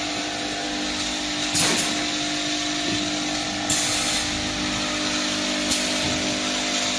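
Automatic bottle filling and capping line running: a steady machine hum under a constant hiss, with a sharp hiss three times, about every two seconds.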